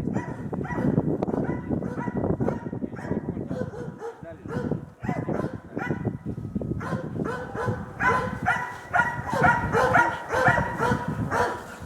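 Hunting dogs baying at a wild boar: repeated barking all through, becoming quicker and more regular over the last few seconds.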